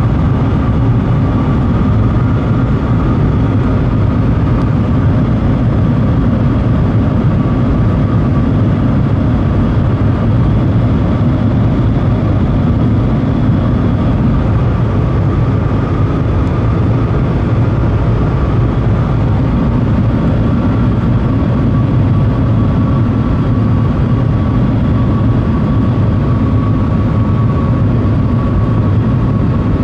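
Shanghai Transrapid maglev train heard from inside the passenger cabin at high speed. A loud, steady rumble of air and running noise is strongest in the low range, with a faint steady high tone above it.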